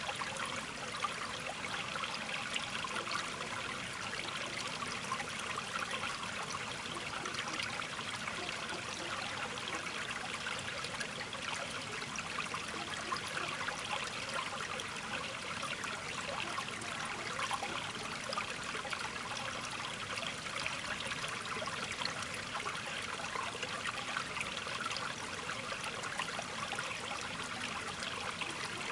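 Steady trickling of running water, a dense fine babble that neither breaks nor changes.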